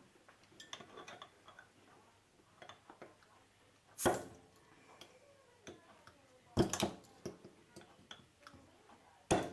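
Steel bottle opener of a folding camping cutlery tool working at a glass bottle's crown cap: light metal ticks and three sharp clicks a few seconds apart, the last near the end as the cap levers loose.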